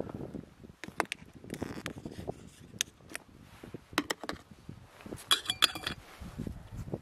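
A spoon clinks and scrapes against an Esbit metal cook pot, with scattered light knocks. About five and a half seconds in comes a quick cluster of ringing metal clinks as the lid is set on the pot.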